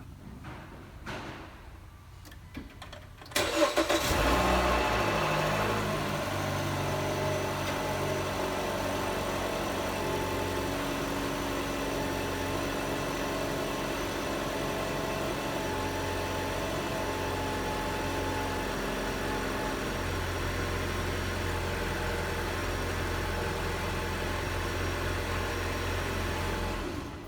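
A 2016 Dodge Dart's 2.0-litre four-cylinder engine is cranked and starts about three seconds in, runs a little faster at first, then settles to a steady idle that stops near the end. The car has just had an oil change, and the engine is being run to circulate the fresh oil before the level is checked.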